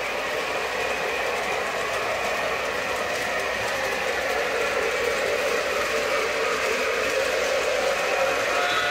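O-gauge model trains running on three-rail track: a steady mix of electric motor hum and wheel rumble. A few steady tones join in near the end.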